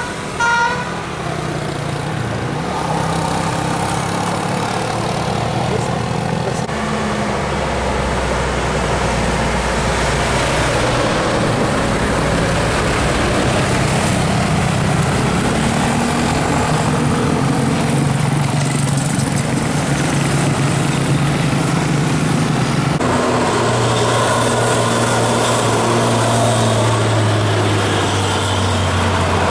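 Engines of passing buses and traffic climbing a hill, running steadily and loudly, the low hum shifting in pitch several times and dropping near the end. The last note of a musical telolet bus horn cuts off right at the start.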